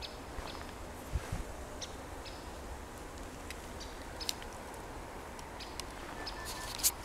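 Faint outdoor ambience with short bird chirps now and then, and a few light twig cracks and crackles as a West Siberian Laika puppy steps about on a pile of dry brushwood, one sharper crack near the end.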